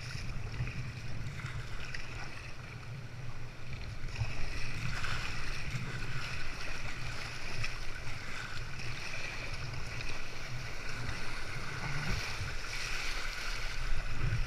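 Sea water washing and splashing around a kayak, with wind rumbling on the microphone. The water noise grows louder about four seconds in.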